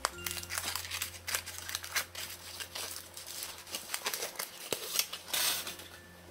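Aluminium foil wrapper of a chocolate surprise egg crinkling and tearing as it is peeled off by hand, in quick irregular crackles. A longer, louder rustle comes about five seconds in.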